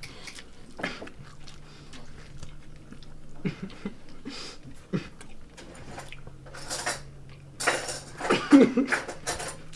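Forks clinking and scraping against a dish as people eat, in scattered sharp taps, with a brief wordless vocal sound about eight seconds in.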